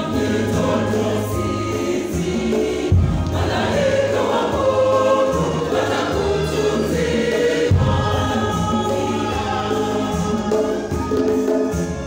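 Mixed church choir singing a Swahili gospel hymn in sustained multi-part harmony.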